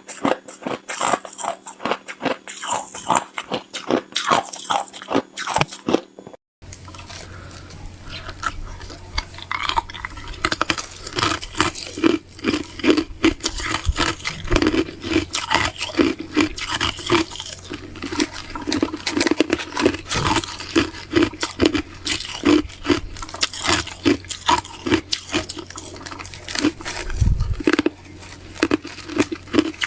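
Ice being bitten and chewed close to the microphone: rapid crisp crunches, several a second. The crunching breaks off briefly about six seconds in, then carries on.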